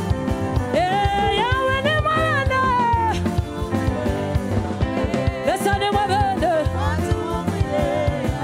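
Live gospel worship music: a band with drums keeping a steady beat, and a voice singing long gliding phrases over it, twice.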